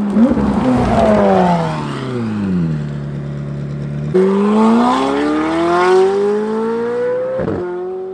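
McLaren 720S twin-turbo V8 through a non-valved titanium F1 exhaust with catless downpipes. The engine note falls and settles for a moment, then about four seconds in the car accelerates hard with the revs climbing. Near the end a quick upshift cuts the pitch sharply before it climbs again.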